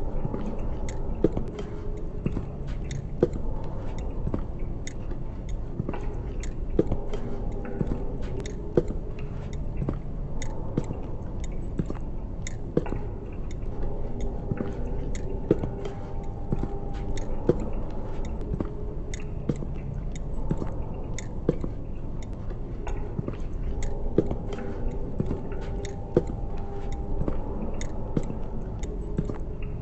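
Dense, close crackling and sticky crunching, with a sharper crack about every two seconds, over a low steady drone and a few held tones.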